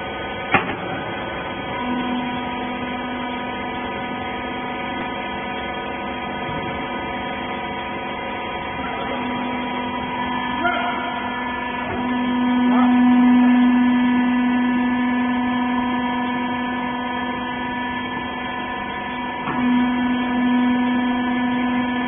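Hydraulic rag baler's electric motor and pump running with a steady hum that starts about two seconds in after a click. The hum swells louder for a few seconds around the middle, then eases back.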